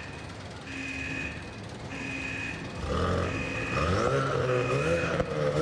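A high electronic beep, repeating about once every 1.3 seconds. From about halfway, a low droning sound with swooping, shifting pitches builds up and grows louder.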